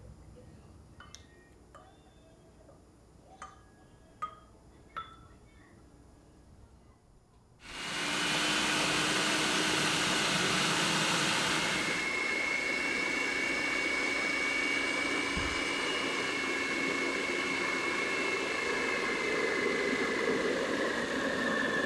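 A few light clinks of glass and utensils, then a Hamilton Beach food processor motor starts suddenly about a third of the way in and runs steadily, churning cultured cream into butter. Its whine changes tone partway through and sinks slightly near the end.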